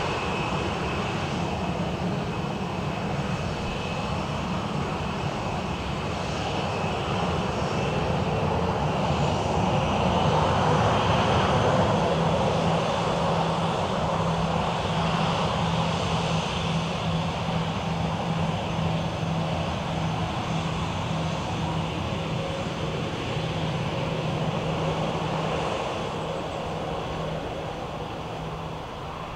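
Jet airliner engines: a steady rush with a thin high whine, swelling to a peak about a third of the way in, then slowly fading.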